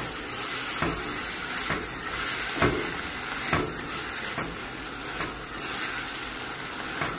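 Tomatoes, onion and garlic sizzling in oil in a pot while a spatula stirs them, scraping and knocking against the pot about once a second.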